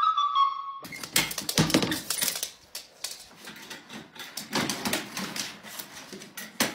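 A recorder's held note ends abruptly, then a rapid, irregular clatter of clicks and knocks follows as a small dog scrambles into a plastic pet carrier.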